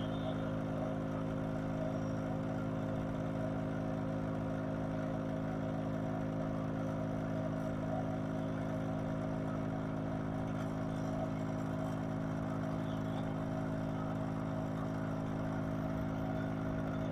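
Steady electrical hum of a mobile-repair LCD separator machine running: a low, unchanging drone made of several evenly spaced tones.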